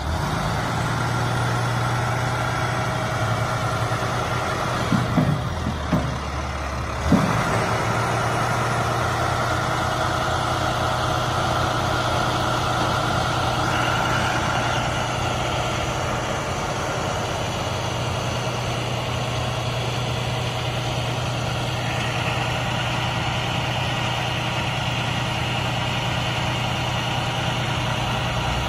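Diesel engine of an International 4400 truck running steadily to power the Altec digger derrick's hydraulics while the boom moves. Its speed picks up right at the start and dips briefly about five to seven seconds in, with a few sharp knocks. A higher whine joins about two-thirds of the way through.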